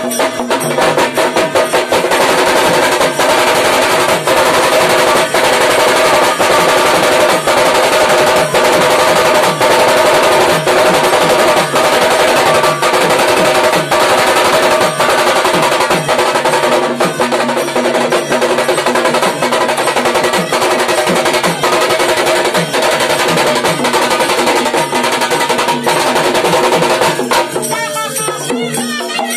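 Khalu baja band: several stick-beaten, strap-slung two-headed drums play a fast, dense rhythm under a sanai (reed pipe) holding a steady melody. The drumming drops out near the end.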